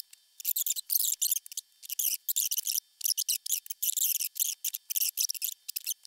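Pliers gripping and bending the metal pins of a round-pin precision socket strip: quick, irregular, high-pitched metallic scratching and clicking with short pauses between.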